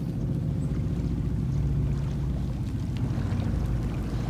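Small boat's outboard motor running steadily at low speed, a low even hum.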